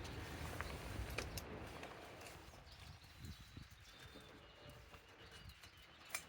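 Faint outdoor background noise with a low rumble that fades after about two seconds, and a few scattered sharp clicks, the loudest near the end.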